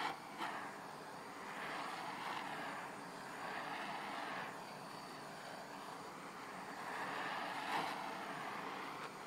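Handheld gas cartridge blowtorch burning with a steady hiss, its flame played over a steel blade, swelling and easing slightly as the torch moves.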